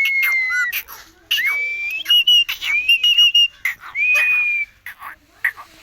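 Pet parrot whistling: several clear, drawn-out whistles, with a quick run of short whistled notes about two seconds in and sharp clicks in between.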